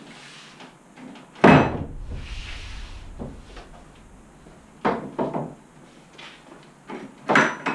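Knocks and bangs from a large plywood-and-MDF CNC table being handled. The loudest bang comes about a second and a half in and is followed by a short low rumble. Two quicker knocks come near the middle and a cluster of knocks near the end.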